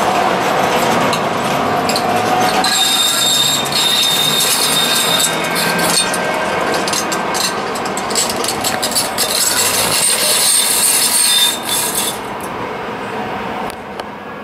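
TriMet MAX light rail train running past on a tight curve, its steel wheels squealing on the rails: a high, piercing screech with crackling clicks sets in about three seconds in and stops about twelve seconds in, leaving a quieter running rumble.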